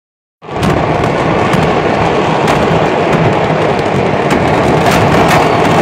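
A fireworks market's stock of fireworks going off all at once: a dense, continuous crackle of bursting fireworks with frequent sharp bangs, starting abruptly about half a second in.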